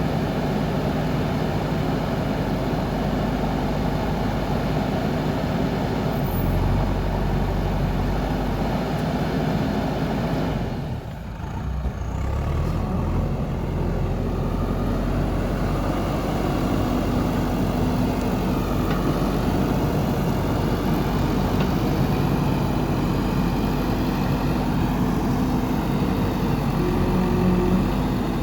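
Diesel engine of a JCB backhoe loader running steadily at work, briefly quieter about eleven seconds in.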